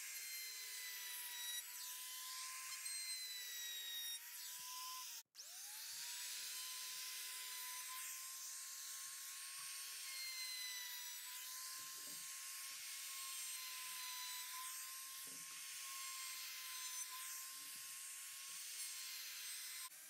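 Compact trim router running with a steady high whine as its bit cuts along the edges of oak and pine boards. About five seconds in the sound breaks off briefly and the motor spins back up to speed.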